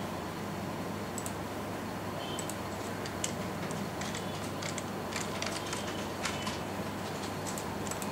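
Computer mouse and keyboard clicking at irregular intervals, over a steady low hum.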